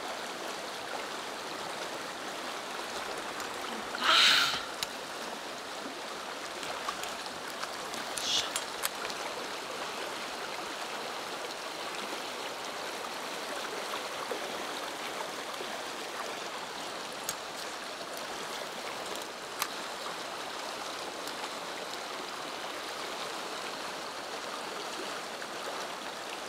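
Swollen, muddy mountain stream running over a riffle in a steady hiss. A brief, louder sharp sound comes about four seconds in, and a fainter one about eight seconds in.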